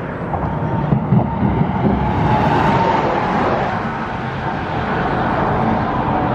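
Road traffic going by close at hand, a steady rush of tyre and engine noise that swells about two seconds in as vehicles pass.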